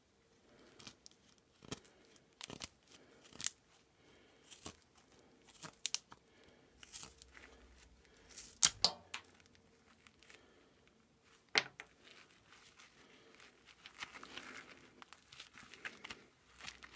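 Carbon-steel neck knife carving a small softwood stick: irregular scraping and cracking cuts as shavings come off, with two sharp knocks about halfway and two-thirds of the way through.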